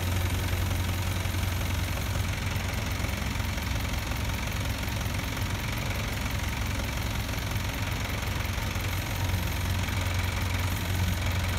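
Crane truck's engine running steadily at idle with a low, even hum, driving the hydraulics of its truck-mounted loader crane.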